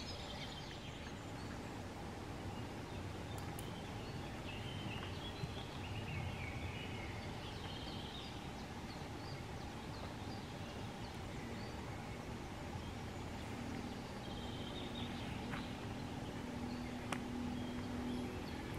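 Woodland ambience: small birds chirping on and off over a steady background rush, with a few light clicks and a brief low hum near the end.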